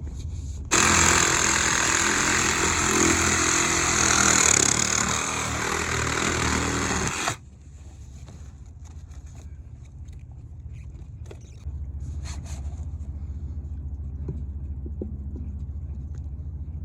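A power saw cuts through PVC pipe for about six and a half seconds and then stops suddenly, with an engine humming steadily underneath.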